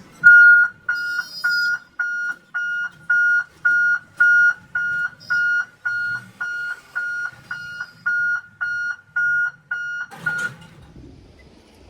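Level crossing warning buzzer sounding a steady electronic beep about twice a second, stopping abruptly about ten seconds in: the alarm that warns of an approaching train at the railway gate.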